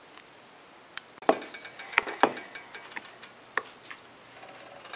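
A handful of sharp clinks and knocks of kitchen utensils against cookware over about two seconds, a few with a brief ring.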